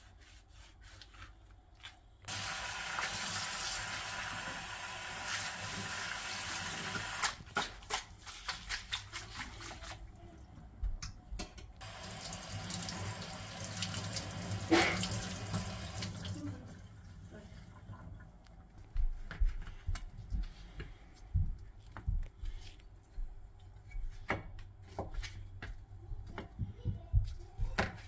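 Kitchen tap running steadily into a stainless steel sink, twice, the second time splashing over diced raw meat being rinsed in a colander. Near the end comes a run of short sharp knocks as a knife cuts on a cutting board.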